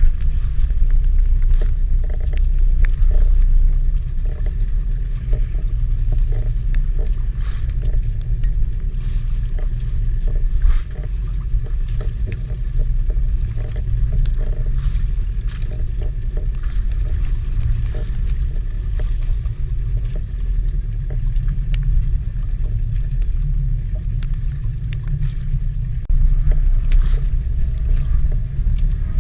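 Steady low rumble aboard a small fishing boat at sea, with scattered light clicks and knocks; it drops a little about a third of the way through and swells again near the end.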